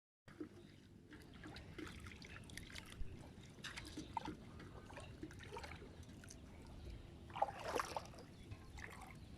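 Shallow marsh water trickling and splashing in small irregular bursts, with a louder splash about seven and a half seconds in.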